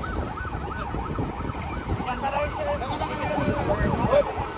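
Electronic siren yelping in fast up-and-down pitch sweeps, with a second siren joining about two seconds in, over the low rumble of vehicles.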